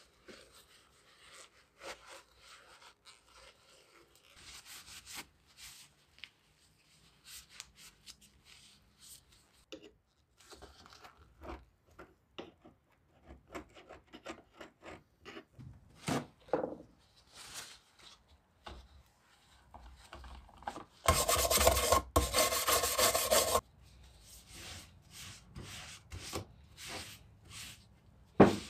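Intermittent hand scraping and rubbing with light clicks and knocks, as in workshop work on metal parts. About three-quarters of the way through, a loud rushing noise runs for about two and a half seconds, broken once by a short gap.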